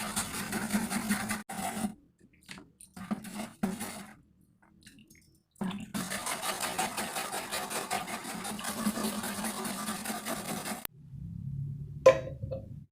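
Abrasive scrubbing on the steel of a rusty knife blade: an even scraping noise with a low hum under it, in two long spells separated by a pause with a few light ticks. After an abrupt stop, a low hum and one sharp metallic tap near the end.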